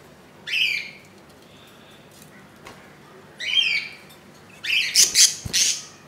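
Adult budgerigar squawking three times, short harsh calls falling in pitch. The last is longer and noisier, with wings flapping as a yellow budgie comes into the nest box.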